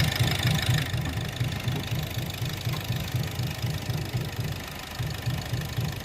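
Engine idling with a steady rhythmic knock, about four pulses a second. The mechanic traces the knocking to the fourth cylinder.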